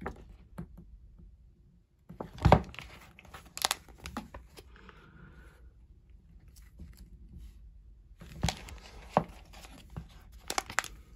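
Paper pages of an instruction booklet being turned by hand, rustling and snapping in two bouts of page-flipping, about two seconds in and again about eight seconds in.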